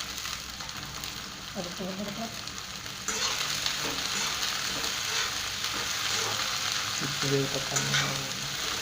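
Chopped vegetables sizzling as they are stir-fried in hot oil in a pan. The sizzle grows suddenly louder and brighter about three seconds in.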